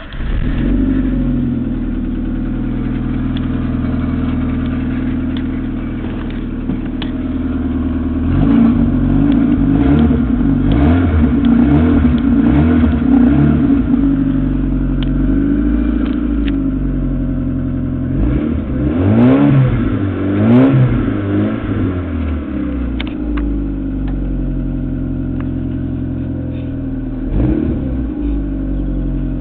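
Ford Escort engine catching and settling into a steady idle, then revved in a series of short blips from about eight seconds in, with one more blip near the end, heard from inside the cabin.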